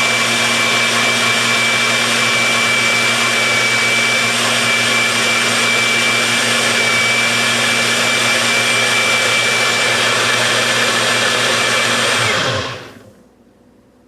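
NutriBULLET PRO 900-watt blender motor running steadily at full speed with a thin high whine, blending frozen fruit and water into a smoothie. About twelve seconds in it switches off and spins down with a falling pitch.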